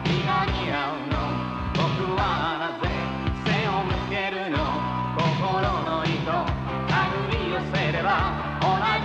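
Ending theme song: sung vocals over a pop band with a steady drum beat.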